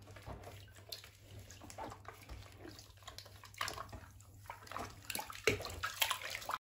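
Water splashing and sloshing in a plastic tub as a Miniature Pinscher puppy is washed by hand, in irregular splashes with the loudest about five and a half seconds in. It cuts off suddenly just before the end.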